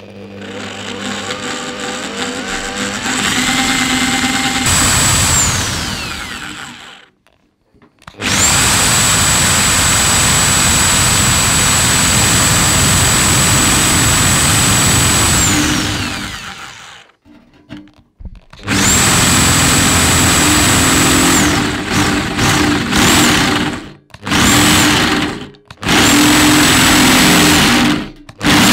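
Bosch electric drill with a 14 mm metal bit boring through the metal of an ammo can: the motor winds up slowly and runs for several seconds at a time with a high whine that falls away each time it stops, then in a string of short bursts with stops between as the bit is pressed into the metal.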